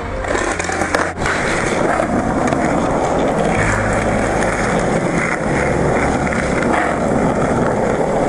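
Skateboard wheels rolling over asphalt, a steady rolling noise, with a couple of sharp knocks about a second in.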